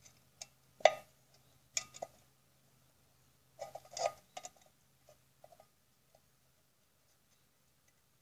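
Thick copper wire clicking and clinking against a thin metal can as it is threaded through a hole in the side. The contact is scattered, with the sharpest clink about a second in and a quick cluster around four seconds. It dies away after about six seconds.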